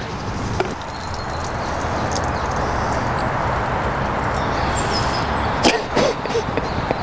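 A man urinating into a hedge: a steady splattering hiss of the stream on leaves and ground. It builds over the first second, with a sharp click near the end.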